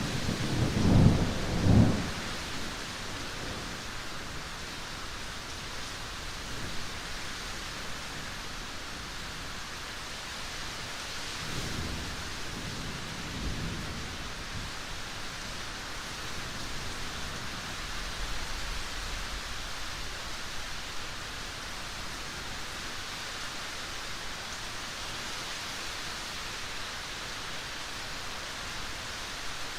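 Steady rain falling, with thunder rumbling: a loud rumble in the first two seconds and a fainter one about twelve seconds in.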